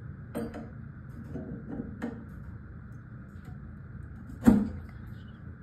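Handling knocks and clicks as parts are fitted onto a figure being dressed, with one sharp, loud knock about four and a half seconds in, over a steady background hiss.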